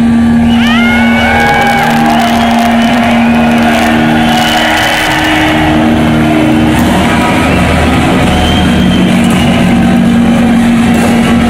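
A hard rock band playing live, loud and heard from the audience. Distorted electric guitar plays long held notes with rising string bends, the first about half a second in, over a pulsing bass.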